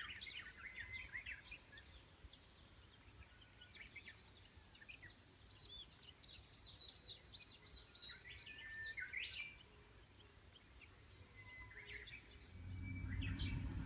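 Wild birds singing, quick high chirps and trills in several bursts. A low rumble comes in near the end.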